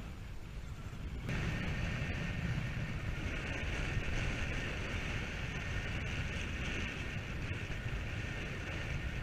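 Wind buffeting the microphone and water hissing along the hull of a sailing boat under way through choppy sea; the sound gets louder about a second in.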